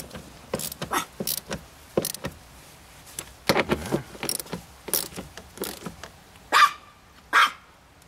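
Irregular small metal clicks and knocks as the bolts holding a Mazda Miata's shift-lever dust boot are tightened by hand, with a louder short sound near the end.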